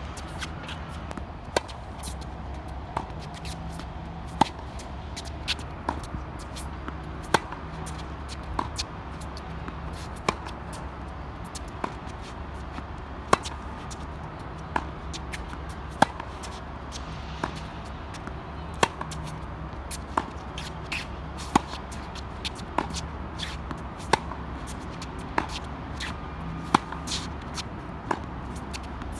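Tennis balls struck by racquets in a baseline rally on a hard court: a sharp pop about every second and a half as the players trade groundstrokes, with fainter ticks between, over a steady low rumble.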